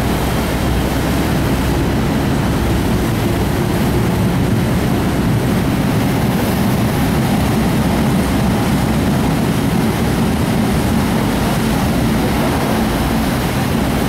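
A ferry's engines and propellers running steadily as the ship manoeuvres in harbour, churning the water alongside: a constant low rumble with a rushing hiss over it.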